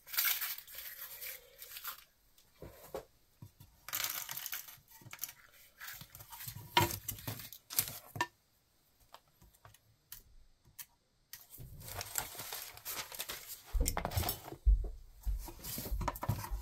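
Hands working small foam-core trays and paper on a workbench: scattered scraping and rustling with light clicks, then a quiet pause. After that comes a busy run of soft knocks and bumps as the trays are handled and set into a wooden cigar box.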